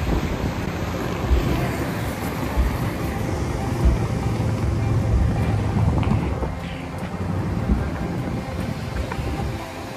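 Wind rumbling on the microphone over the wash of surf and passing road traffic, with some low thumps from handling.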